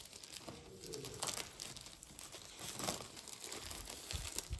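Clear plastic wrapping crinkling and rustling as it is peeled and pulled off a plastic cat puzzle-feeder board, with a couple of soft low thumps near the end.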